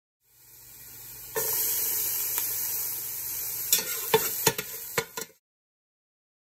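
Minced onion and garlic sizzling in olive oil in a stainless steel pot while a spatula stirs them. The hiss fades in and grows suddenly louder about a second and a half in. Several sharp clicks of the spatula against the pan come near the end, and then the sound cuts off abruptly.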